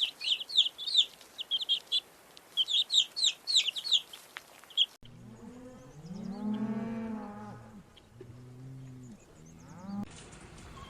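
Small bird chirping rapidly in a string of short, high, falling notes. After an abrupt cut halfway through, a cow moos in one long low call, followed by shorter calls near the end.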